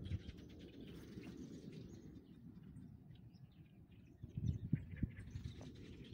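Small birds chirping here and there over a steady low rumble, with a few dull thumps about four and a half seconds in.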